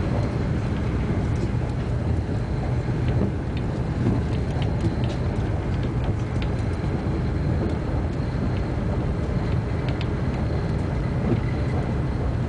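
Steady low rumble of an AVE high-speed train running at speed, heard from inside the passenger carriage, with a faint high whine and a few faint scattered clicks.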